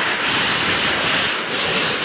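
Storm noise: a steady, loud rushing roar with no distinct events.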